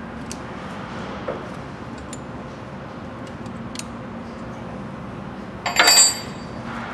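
A wrench working on a steel shaft coupling half to slide it along the drive shaft: a few light metal clicks, then a short burst of ringing metal-on-metal clanks about six seconds in.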